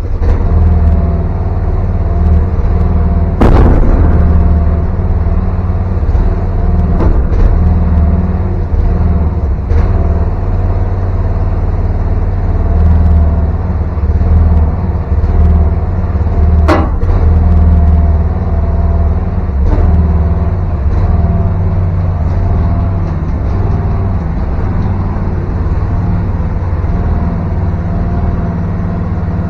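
VC13C mini excavator's engine running steadily, with two sharp knocks, one a few seconds in and one just past halfway.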